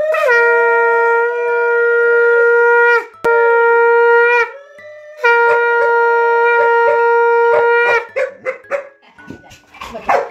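A toy horn blown in three long notes at one steady pitch, the first and last about three seconds each with a shorter one between. Then, from about eight seconds in, a Labrador retriever barks in a quick run of short barks.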